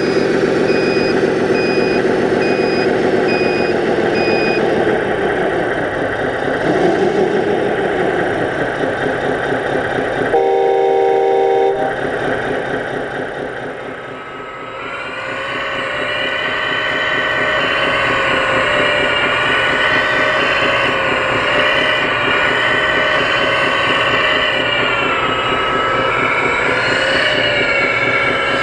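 Scale sound modules of RC construction models: the Scania dump truck's diesel engine running with a reversing beeper for the first few seconds, then a chorded air-horn blast of about a second and a half near the middle. In the second half the CAT 330D excavator's simulated engine runs, its pitch rising and falling as the machine digs and loads.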